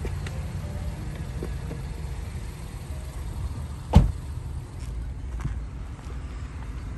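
Steady low rumble, with one sharp, loud thump about four seconds in.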